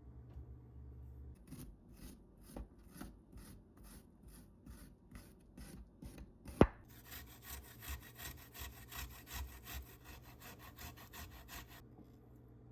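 Knife cutting vegetables on a wooden cutting board in even strokes, about two a second. A single sharp knock comes about halfway through, then quicker, scratchier strokes at about three a second that stop near the end.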